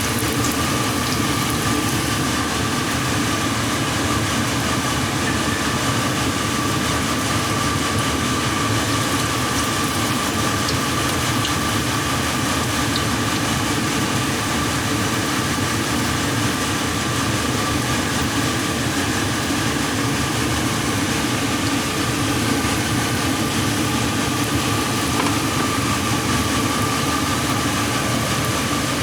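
Fan running steadily: an even whooshing hum with a constant thin whine, unchanging throughout.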